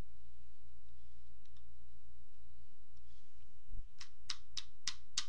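A steady low electrical hum, then a low bump and a run of sharp, evenly spaced clicks, about three a second, starting about a second before the end.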